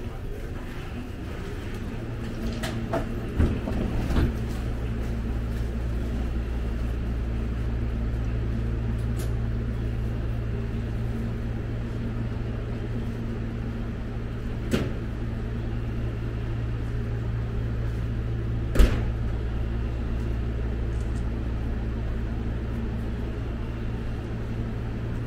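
Steady low hum of a stationary 285 series Sunrise Express sleeper train, with a few sharp metal clanks from work at the coupler between the cars. The loudest clank comes about two-thirds of the way in.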